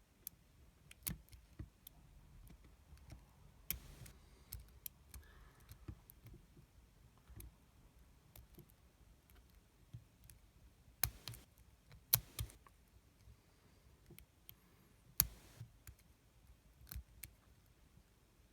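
Lock pick and tension wrench working the pins of an Avocet 5-pin padlock with spool and serrated security pins: faint, irregular small metallic clicks, with a few sharper ones around eleven, twelve and fifteen seconds in.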